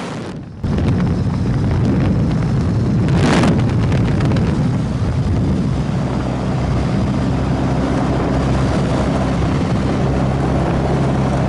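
The de Havilland DH-83 Fox Moth's engine and propeller running steadily at climb power in a go-around, heard from the open cockpit with wind rushing past. The sound steps up about half a second in, and a short gust of wind noise hits about three seconds in.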